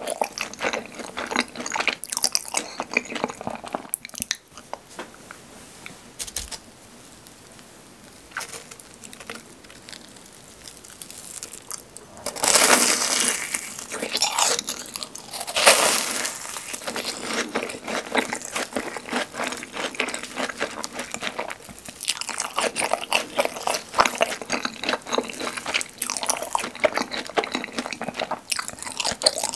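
Close-miked biting, crunching and chewing of fried cheese balls with crisp crusts and a soft cream cheese filling. Two loud crisp bites come about twelve and sixteen seconds in, with quieter chewing between about four and twelve seconds.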